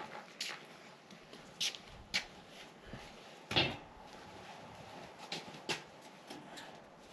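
A series of light, irregular knocks and clicks, the loudest about three and a half seconds in.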